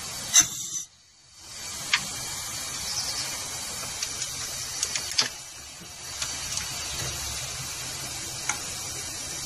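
Compressed air hissing steadily as the engine cylinder is held under air pressure for valve-spring removal, briefly cutting out about a second in. A few sharp metallic clicks of hand tools on the valvetrain sound over it.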